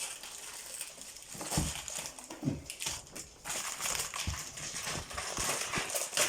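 A dog rummaging in a box of packaging, crinkling and crushing the wrapping, with a few soft thumps.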